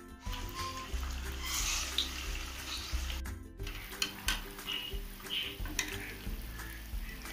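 Rice-flour vadas sizzling as they deep-fry in hot oil in an aluminium kadai, with light background music under it. The sound breaks off briefly about halfway. After that a metal skewer turning the vadas adds light clicks.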